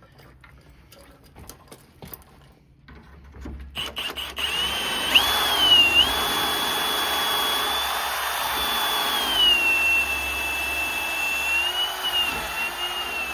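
Power drill boring a through-bolt hole into a wood door through a centering jig. After a few light clicks of handling, the drill starts about four seconds in and runs steadily with a high whine whose pitch dips a little as it bites into the wood, stopping abruptly at the end.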